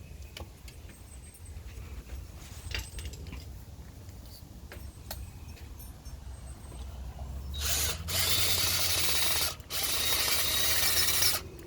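A power drill backing out a rust-stuck screw from an old light fixture. Several seconds of faint clicks and handling come first, then the drill runs twice, about two seconds each, starting about 7.5 seconds in.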